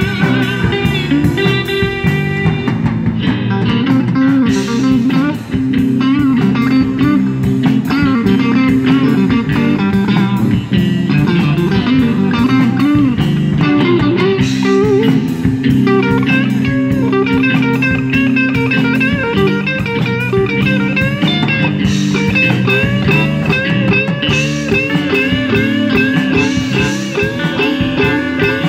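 Live electric blues band playing an instrumental passage with electric guitars, bass guitar and drum kit. A lead electric guitar plays wavering, bent notes over the rhythm.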